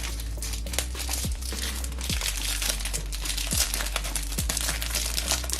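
Plastic packaging and card sleeves crinkling and rustling in irregular bursts as they are handled, over quiet background music with a steady beat.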